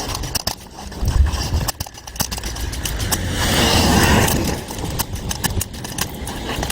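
Rapid, irregular knocks and taps of hard objects striking, with a louder scraping rush at about three and a half to four and a half seconds in.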